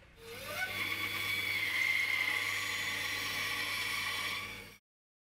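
Bandsaw running and cutting a hardwood strip: a steady motor hum under the hiss of the blade through the wood, with a short rising tone just after it starts. The sound stops abruptly near the end.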